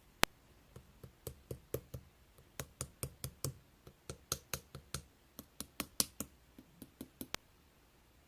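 About thirty sharp taps in irregular runs of three to four a second, made by fingers or fingernails on a hard surface. They stop a little after seven seconds in.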